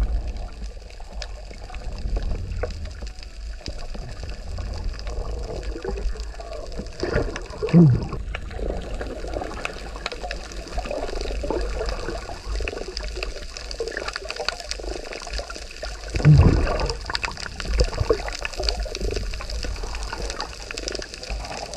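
Underwater sound through a submerged camera: a steady low rumble of moving water, with two louder gurgling bursts, one about eight seconds in and one about sixteen seconds in.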